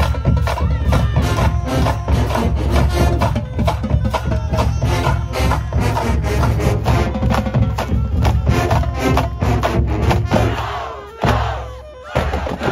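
Show-style marching band playing a brass-heavy tune over a steady drumline beat, with sousaphones, saxophones and bass drums. About eleven seconds in the band stops on a sharp hit that rings down for about a second, then the drums come back in.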